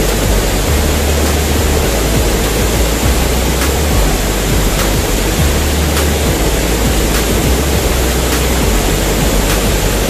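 Small waterfall cascading over boulders into a rock pool: a loud, steady rush of falling water.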